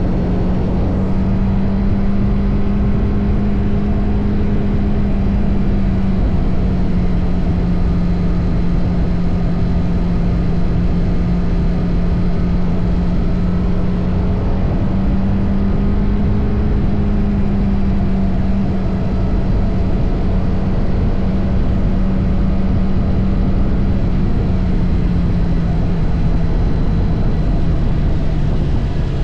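TVS Apache RR310's stock single-cylinder engine and exhaust at a steady cruise, its note holding nearly level with small dips and rises in revs and easing down near the end, over a constant rush of wind and road noise.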